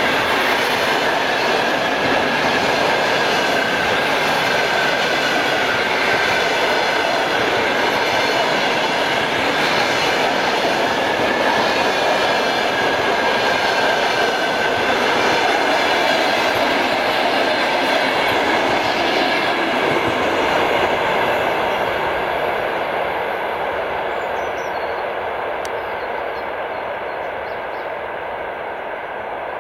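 A train running by, a loud steady rail noise with a thin high tone riding over it, fading away over the last several seconds.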